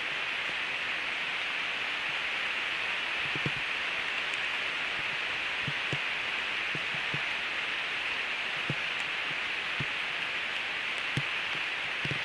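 Heavy rain falling on a forest canopy as a steady hiss, with scattered soft thuds of large drops at irregular moments.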